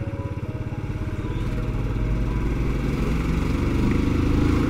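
Motorcycle engine running under way with a steady pulsing exhaust beat, its note rising and getting louder toward the end as the bike accelerates.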